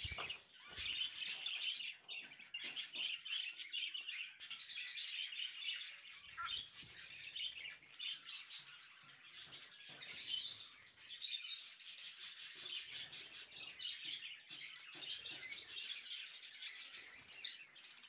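Caged pet birds chirping and twittering continuously, many short high calls overlapping.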